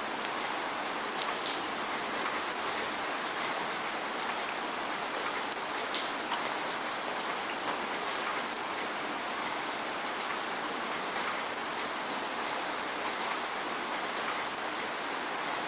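Steady rain falling, an even hiss with many scattered drop ticks striking a surface.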